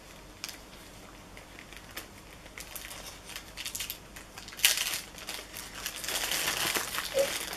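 Small cardboard blind box being opened by hand, its packaging crackling and crinkling in scattered bursts, with a sharp crackle about four and a half seconds in and a second of steady crinkling after that.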